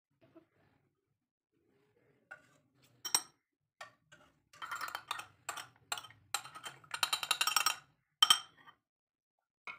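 A spoon clinking against a small ceramic bowl as egg yolk and milk are beaten together. A few scattered taps give way to a quick run of rapid clinks for about three seconds, followed by a couple of sharper, louder knocks.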